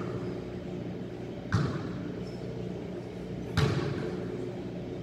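A basketball hitting the court hard twice, about two seconds apart, each a loud thud echoing through the large hall, over a steady low hum.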